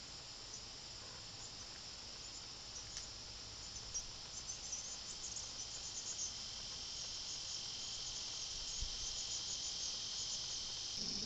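Insects trilling steadily in a summer daytime chorus, with a run of quick high chirps over it from about four seconds in and a second, lower-pitched insect buzz joining a little later.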